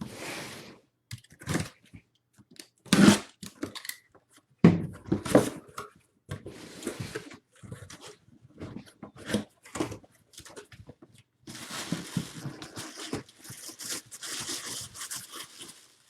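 A sealed cardboard box being opened and unpacked by hand: seals tearing, cardboard scraping and knocking, and packing material crinkling in irregular bursts, with a longer stretch of steady rustling near the end.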